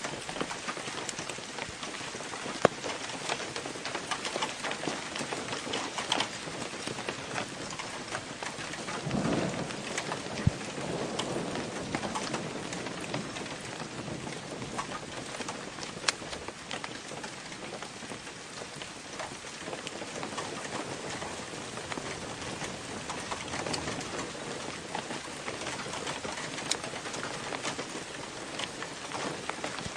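Steady rain falling, with scattered sharp drops ticking on a nearby surface and a brief low rumble of thunder about nine seconds in.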